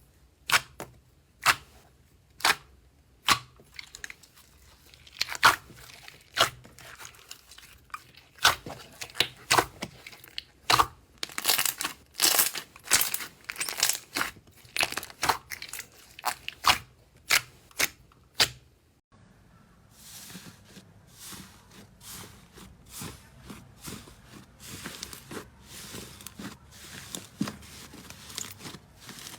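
Slime being pressed and worked by hand, giving sharp crackling pops and crunches, about one a second at first, then thicker and faster. About 19 s in it changes to a quieter, quicker run of small crackles.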